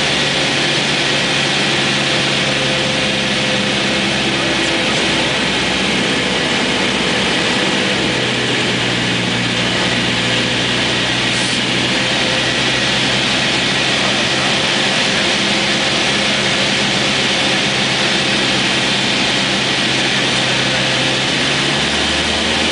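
Cessna 172's piston engine and propeller running steadily in flight, heard from inside the cabin. The engine note shifts slightly about eight seconds in and again near the end.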